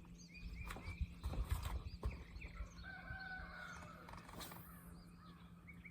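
Small birds chirping over a steady low hum, with a few light knocks, and about three seconds in a short wavering animal call.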